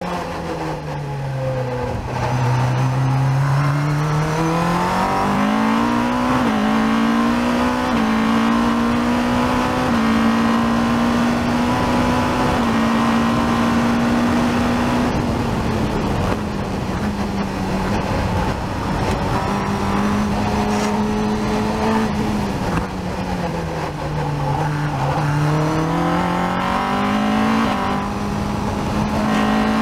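Caterham R400's four-cylinder engine driven hard on a race lap, heard on board the open car: the revs sink at first, then climb with quick upshifts about 6, 8 and 10 seconds in and hold flat out. The note falls away under braking about 15 seconds in and again around 23 seconds, then climbs once more, over a steady rush of wind and road noise.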